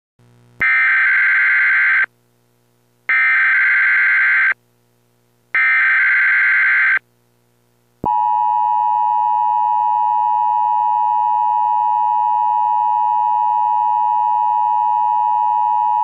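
Emergency Alert System alert: three bursts of the digital SAME header data tones, each about a second and a half long with short gaps between, then about eight seconds in the steady two-tone EAS attention signal (853 and 960 Hz) begins and holds.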